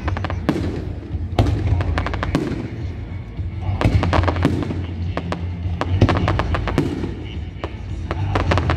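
Fireworks display: clusters of rapid crackling pops and bangs, in bursts about a second apart, over a steady low rumble.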